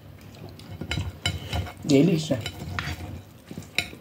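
Fork and knife scraping and clicking against a glass plate as noodles and sausage are cut and pushed around, a run of short irregular clicks.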